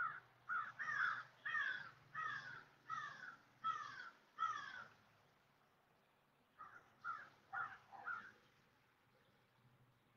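A bird calling in a series: a run of about eight repeated calls, roughly one every 0.7 seconds, then after a pause of nearly two seconds four quicker calls.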